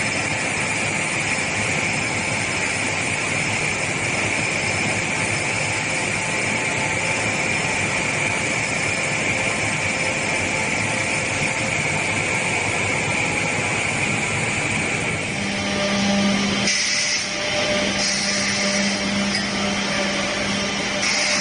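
Woodworking production machinery running steadily with a dense mechanical hiss. About 15 seconds in the sound changes to a steady low hum with a higher whine, as a different machine is heard.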